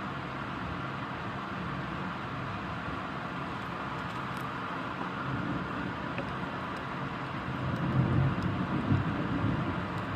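Steady rain hiss with a low rumble of thunder that swells from about halfway and is loudest near the end.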